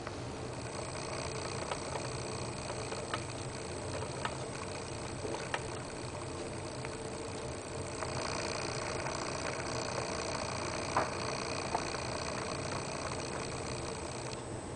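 Steady electric hum of a small motorized display turntable, with a few faint clicks now and then.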